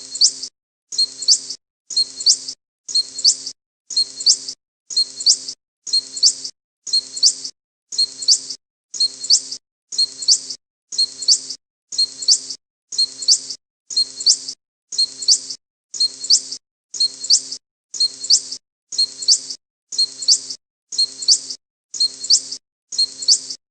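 Countdown timer's per-second sound effect: a short, high-pitched sound repeating evenly once a second, marking each second of the countdown.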